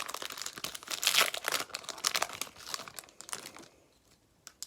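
Crinkling of a trading-card pack wrapper as it is handled and torn open, a dense run of crackles that stops about three and a half seconds in, followed by one faint click.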